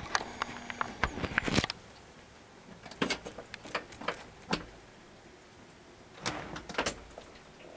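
Irregular clicks and knocks, in small clusters with quieter gaps between, with a brief steady hum in the first second.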